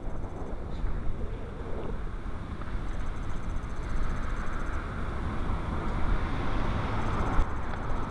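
Steady road and engine rumble inside a moving vehicle's cabin.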